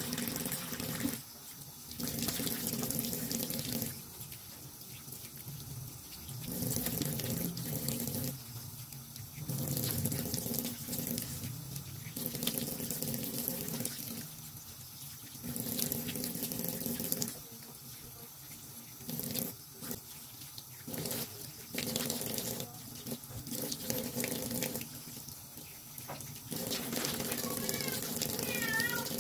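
Kitchen tap running into a sink while fish are rinsed and cleaned under the stream. The rush of water swells and drops as hands and fish move through it. Near the end a cat starts meowing.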